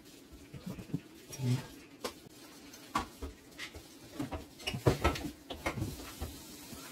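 Microfiber cloth wiping a stainless-steel oven door and its glass window, heard as irregular short rubs and light knocks, the loudest about five seconds in.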